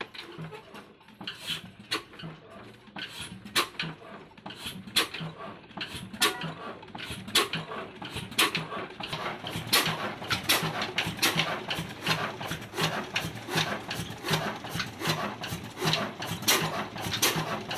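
Old 22 HP single-cylinder horizontal diesel engine with a heavy flywheel firing just after starting, one sharp knocking beat per firing stroke. The beats come faster and louder as the engine picks up speed, from about one a second to about two a second.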